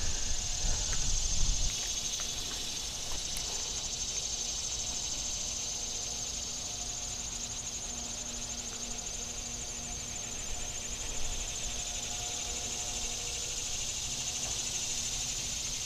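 A steady, high-pitched chorus of insects chirring without a break, with a low rumble on the microphone in the first second and a half.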